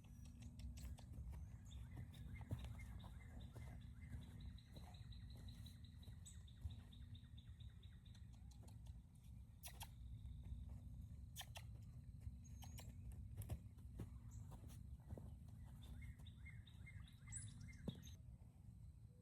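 Faint birdsong: a trill of evenly repeated notes a few seconds in and a short run of chirps near the end, over a low outdoor rumble with scattered faint clicks.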